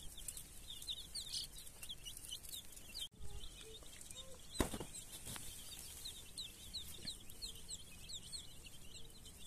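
Chicks peeping continuously, many short high-pitched peeps, with a brief gap about three seconds in and a single sharp knock shortly after.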